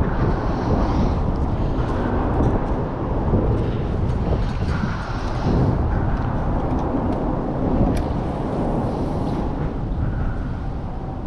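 Wind buffeting the microphone: a loud, uneven rumbling noise that swells and eases, with a few faint clicks over it.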